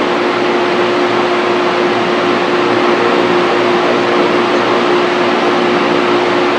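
Steady whir of a fan with a constant hum tone running under it, unchanging throughout.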